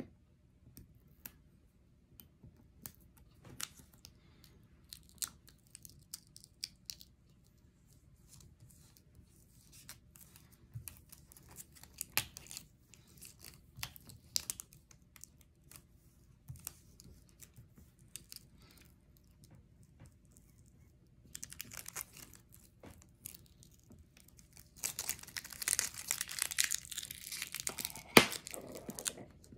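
Excess black vinyl cutting sheet being peeled off its backing with a metal pick. Scattered small ticks and crackles at first, then a longer tearing, crinkling peel of about four seconds near the end, broken by one sharp click.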